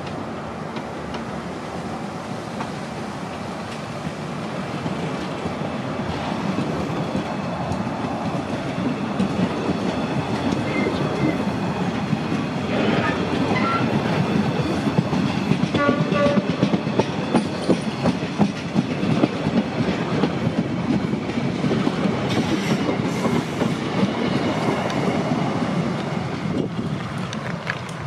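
Costa Verde Express passenger coaches rolling past on metre-gauge FEVE track: a steady wheel rumble with clickety-clack over the rail joints. It grows louder toward the middle, then eases off as the end of the train draws away. A few brief high tones sound about halfway.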